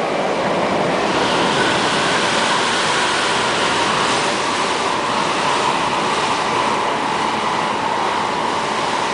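MTR K-Train electric multiple unit running at speed, heard from inside the carriage: a steady rush of wheel and rail noise, with a faint steady tone running through it.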